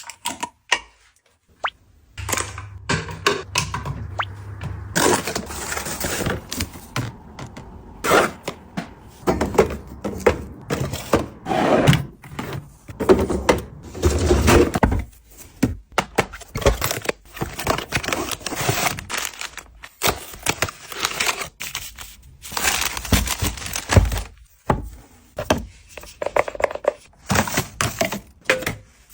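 Packaging being handled and opened: irregular taps, knocks and thunks mixed with bursts of rustling, with a few heavier thumps.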